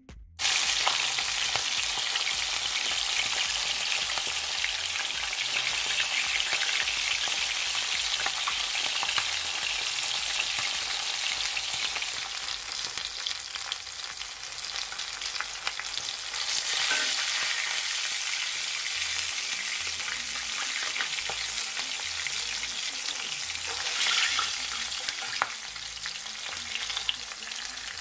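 Whole fish frying in hot oil in a cast-iron skillet: a steady, crackling sizzle that swells briefly about two-thirds of the way through and again near the end.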